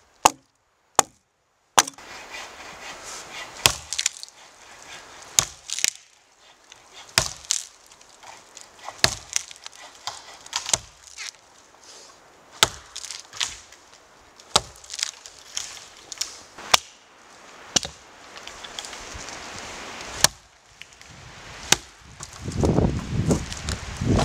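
Axe chopping into wood, one sharp blow about every two seconds with lighter knocks between. Near the end comes a louder rustling crunch of footsteps through snow.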